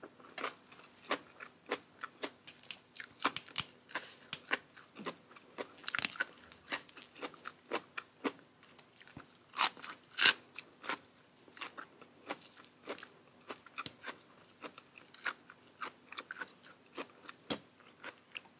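A person chewing and biting crunchy food close to the microphone: many sharp crunches, several a second and uneven, with the loudest bites about six and ten seconds in.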